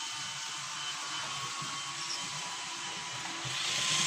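Model class 150 diesel multiple unit running on the layout track: a steady whirr of its small electric motor and wheels, getting louder near the end as the train approaches.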